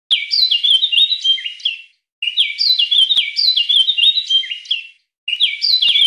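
Bird chirping in quick, stepped high notes, in near-identical phrases of about two to three seconds that repeat after short, completely silent gaps, like a looped recording.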